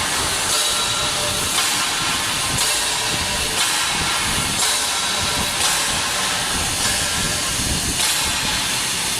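TIG welding arc from an Omega 350T welder, hissing and crackling steadily, with a brighter surge about once a second.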